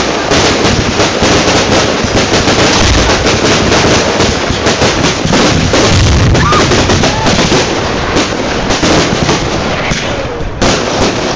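Consumer fireworks going off in a dense, rapid run of crackles and pops, with heavier thumps about three and six seconds in.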